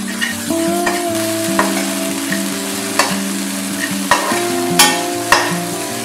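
Onions, carrots and green peas sizzling in oil in a non-stick kadai while a metal slotted spatula stirs them. The spatula scrapes and knocks against the pan about six times, loudest about five seconds in.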